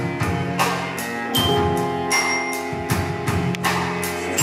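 A live orchestra playing an instrumental passage: sustained chords over drum hits that come about three times a second.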